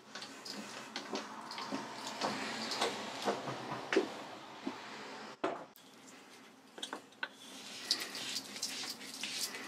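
Faint rubbing and scraping with light metal clicks and knocks as hands work at the bare spindle nose and bore of a Boxford lathe, with a short break a little over halfway through.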